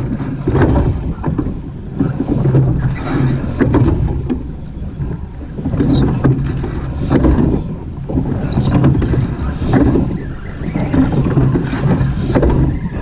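Wooden oars of a surf boat being rowed in a regular stroke rhythm, a noisy surge of splash and oar-in-rowlock knock with each stroke, over steady wind buffeting the microphone.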